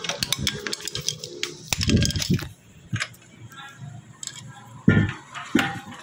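Hand tools and metal motorcycle parts clicking and clinking while a rear-set shifter assembly is being fitted, with a couple of dull knocks.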